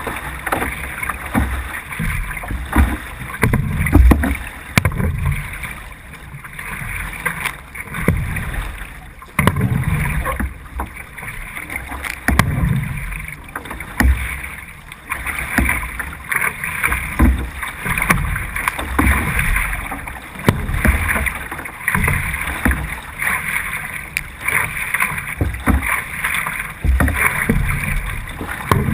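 C1 sprint canoe paddle strokes pulling through the water in a steady racing rhythm, about three strokes every four seconds, over a constant rush of water.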